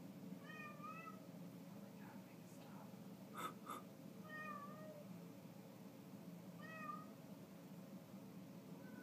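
A cat meowing three times, short calls a couple of seconds apart, with two sharp clicks between the first and second meow over a faint steady hum.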